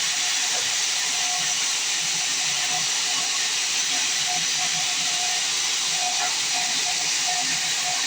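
Band sawmill blade cutting through a log: a steady high-pitched hiss that holds evenly throughout.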